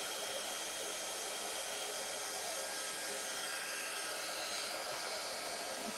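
Electric embossing heat tool blowing steadily, a hair-dryer-like rush of air with a faint high whine, as it melts embossing powder on the card.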